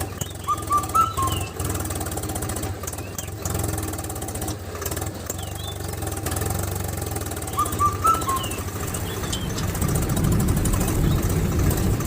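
A small motor running steadily with a fast, even pulse, growing louder and rougher near the end, with birds chirping briefly twice.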